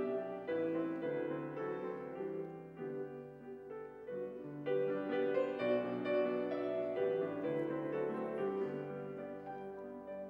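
Grand piano played solo: a slow succession of held chords, each ringing on as the next is struck, fading a little near the end.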